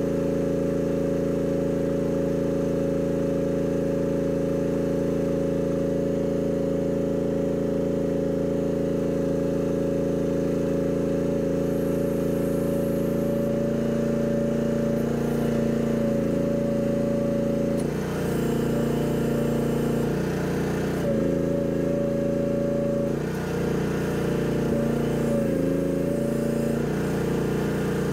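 Mini excavator engine running steadily. About two-thirds of the way in, its note begins to dip and waver repeatedly.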